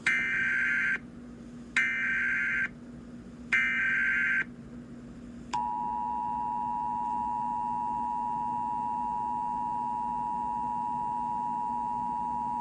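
Emergency Alert System signal: three short SAME header data bursts, each about a second long. About five and a half seconds in, the steady two-tone EAS attention signal starts and holds.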